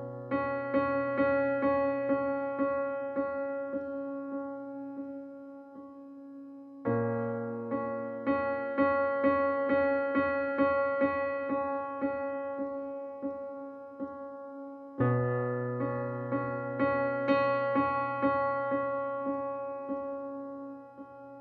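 Background music on solo piano. Sustained chords carry a run of repeated notes, about three a second, that fades away. A new phrase starts about every eight seconds.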